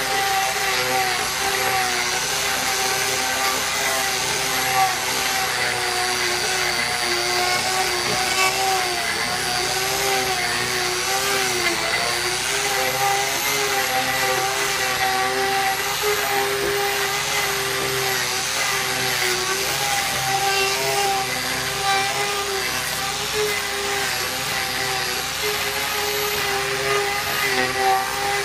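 Angle grinder fitted with an Arbortech TurboPlane blade, running steadily as it shaves and scrapes rough-sawn timber. Its whine wavers slightly in pitch as the blade bites into the wood.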